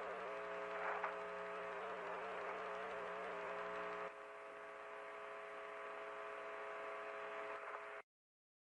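A steady, droning hum of several held tones, of the kind posted as a strange sound heard in the sky. It shifts slightly about four seconds in and cuts off suddenly near the end.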